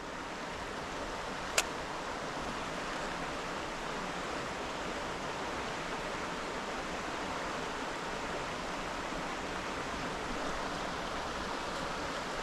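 Steady rush of flowing river water, with one sharp click about one and a half seconds in.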